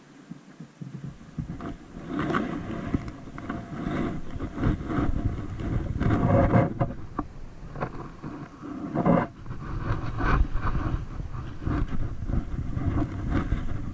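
Wind buffeting a moving body-worn camera's microphone, with irregular rustling, knocks and scuffs of handling and hurried footsteps on wet mud, starting about a second and a half in.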